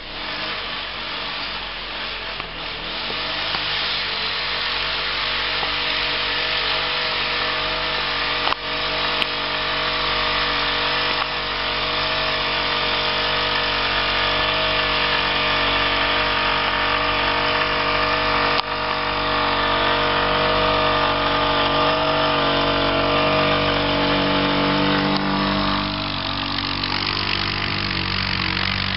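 Suzuki KingQuad 750 ATV's single-cylinder engine running under load as the quad ploughs through deep snow, getting louder as it comes closer. The engine note drops and eases slightly about four seconds before the end.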